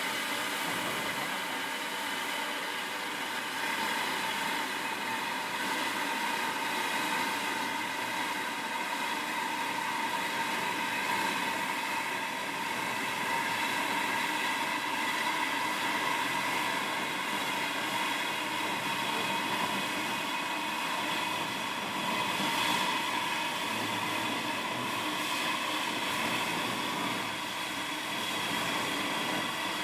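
Steam locomotive (LMS Jubilee 45596 Bahamas) standing in steam, giving a steady hiss with a few held tones in it and no beat of exhaust.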